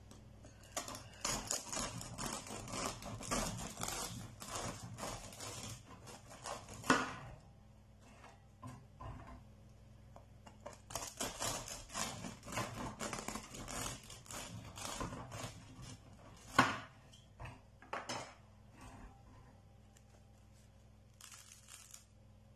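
A knife sawing through the crust and crumb of a homemade loaf of bread, in two cuts of several back-and-forth strokes with a crackly, scraping sound. Each cut ends in a sharp tap as the blade comes through onto the wire cooling rack.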